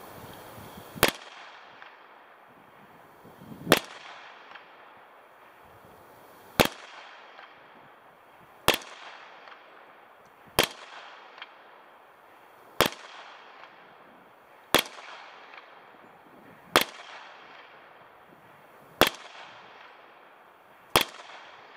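Ten single gunshots, fired about every two seconds at a steady pace from 50 yards away toward a target right beside the microphone, each a sharp crack with a short echo.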